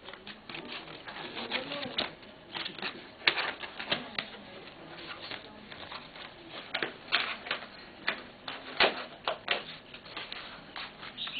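Jigsaw lamp pieces being slotted and pressed together by hand: a run of quick, irregular clicks and taps, several a second.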